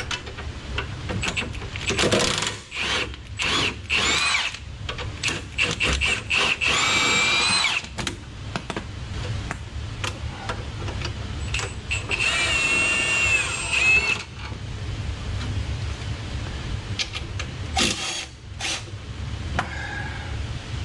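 Milwaukee cordless impact wrench driving bolts on the rear suspension, in four bursts of motor whine, the longest two lasting one to two seconds. Between the bursts come short clinks and knocks of tools and parts, over a steady low hum.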